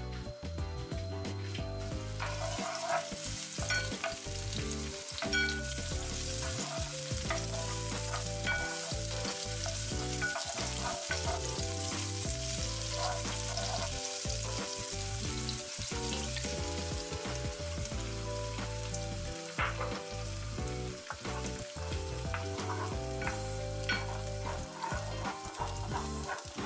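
Sliced green chili peppers, and later eggs, sizzling in cooking oil in a nonstick frying pan, with scrapes and taps of a wooden spatula stirring them. The sizzle comes up about two seconds in and then holds steady.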